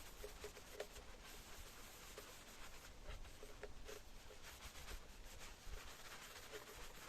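Faint rubbing and scratching as polishing compound is worked into the plastic of a tail lamp housing, with small irregular ticks.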